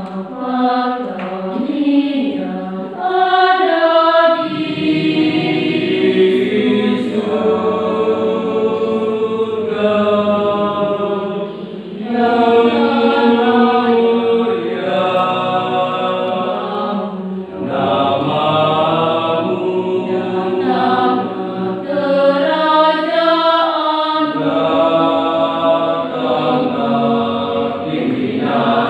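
Mixed church youth choir singing unaccompanied in parts, in long held phrases with short breaks between them; lower men's voices join about four seconds in.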